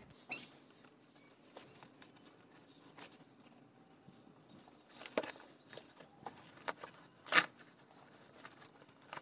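Cardboard shipping rolls being handled and pried open: faint scattered rustles and crackles of paper and tape, with a few sharp knocks, the loudest about seven seconds in.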